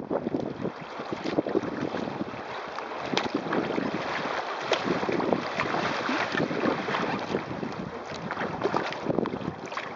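Wind buffeting the microphone over a steady rush of water, with irregular splashes and slaps as choppy waves hit the hull of a kayak under sail.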